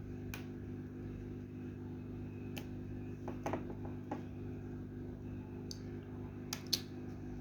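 A few faint, scattered clicks and taps of hand tools prying at a Samsung J7 Pro phone's screen, over a steady low hum.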